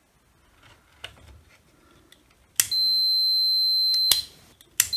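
Digital multimeter's continuity beeper sounding a steady high beep for about a second and a half, starting about two and a half seconds in, and again just before the end, with faint clicks of the probes on the contacts. The beep shows continuity through the trigger switch's contacts: the switch is working.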